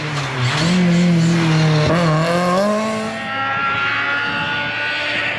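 BMW 318is E36 rally car's four-cylinder engine revving hard through a corner; its pitch dips sharply about two seconds in, then climbs again. After a cut, the engine is heard further off, its note rising steadily as it accelerates.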